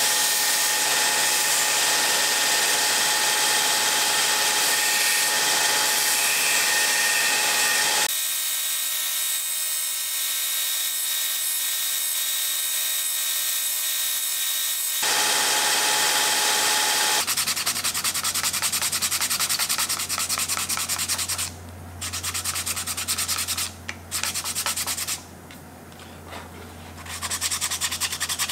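Belt sander with a wooden knife-handle scale held against its belt: a steady, loud abrasive hiss of wood being ground. In the last third it gives way to quick rubbing strokes that stop and start, a scale being hand-sanded with an abrasive pad.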